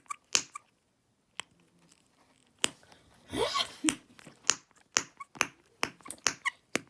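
Snapper fidget toy snapping repeatedly: sharp clicks, a few spaced ones at first, then a quick run of them from about two and a half seconds in. A short rising whine is heard near the middle.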